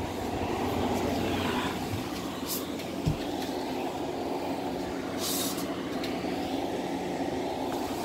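Midea window air conditioner running, a steady fan blowing with a low hum under it. A single dull thump about three seconds in and a couple of brief rustles from handling.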